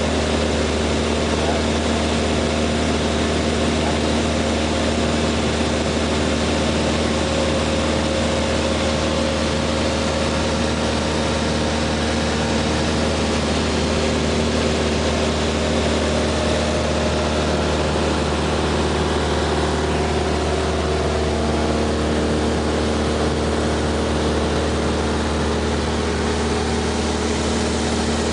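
Light aircraft's piston engine and propeller droning steadily in cruise flight, with a slight shift in pitch about two-thirds of the way through.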